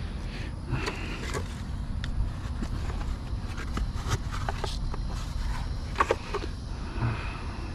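Scattered light clicks, taps and scrapes of wiring and small plastic parts being handled on an ATV, with a sharp double click about six seconds in, over a steady low hum.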